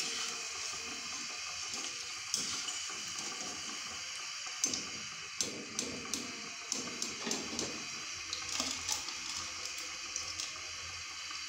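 Aloo bhujia strands deep-frying in hot ghee in a pan: a steady sizzling hiss, with scattered sharp ticks and light taps as a wire skimmer lifts the strands out.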